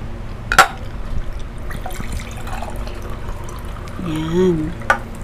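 Water poured from a glass pitcher into a cup, with a sharp knock about half a second in and another near the end. A short hummed voice is heard just before the end.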